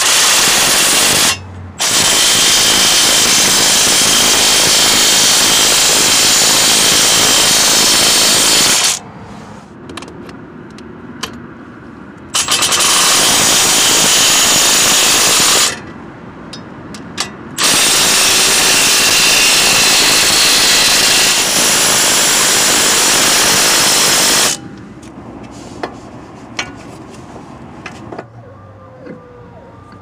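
Cordless impact wrench driving the three front wheel hub bolts into the steering knuckle. It runs in four long bursts, the second and fourth about seven seconds each, with short pauses and a few light clicks between.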